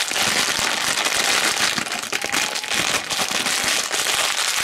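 Thin plastic foil blind bag being crumpled and torn open by hand, a dense crackle of many small clicks.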